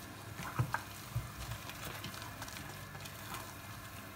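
Spatula stirring and folding cream into mashed potato in a nonstick pot: soft squelching and scraping, with a few short knocks against the pan between about half a second and a second and a half in.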